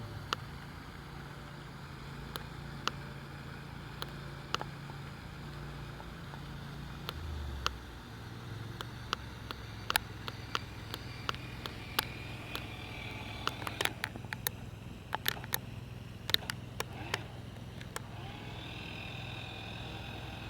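Small electric motor of a toy RC wakeboard boat humming low and steady, its pitch dropping and shifting about a third of the way in. From about halfway, a run of sharp clicks and knocks joins it.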